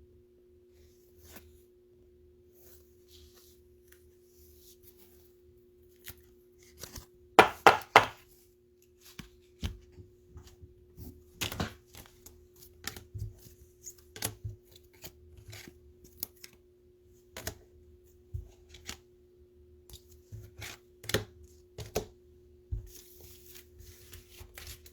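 Plastic-sleeved and top-loaded trading cards being handled and set down on a table: scattered taps and clicks, with a cluster of louder knocks about seven seconds in, over a faint steady hum.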